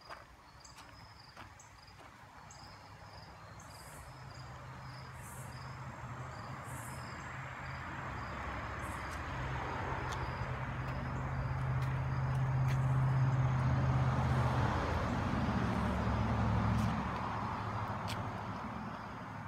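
A vehicle passing: a low steady hum with a rush of noise that swells slowly for about ten seconds, peaks past the middle, then fades away. Insects chirp in a regular pattern behind it.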